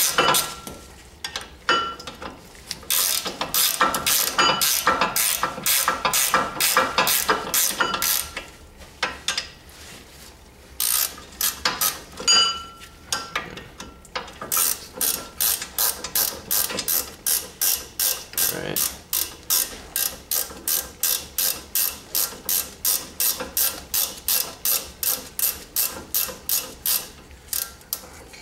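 Hand socket ratchet clicking in quick, even strokes, about two to three clicks a second, as it backs out the brake caliper bracket bolts. The clicking comes in several runs broken by short pauses.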